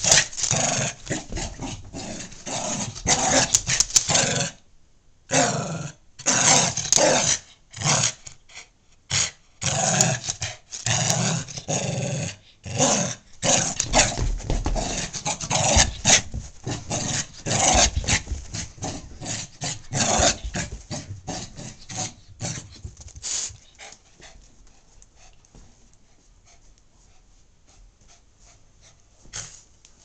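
A small dog play-growling in repeated bursts with short pauses between them. The growling stops about three-quarters of the way through.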